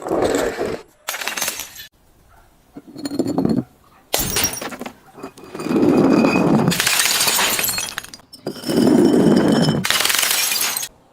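Glass breaking and being crushed: a series of about six crunching, shattering bursts with clinking, the last two drawn out over two to three seconds each.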